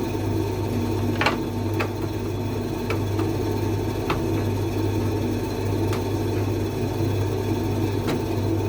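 Creda 37761 machine running with a steady low hum and a faint whine, broken by about six irregular sharp clicks or knocks. This is the noise the owner wants fixed.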